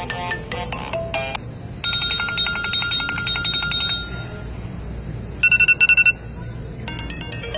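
iPod touch ringtones played one after another: a short melodic tune, then a dense repeating chime pattern, then a loud rapid trill of beeps lasting under a second, and another ringtone starting near the end. A steady low hum runs underneath.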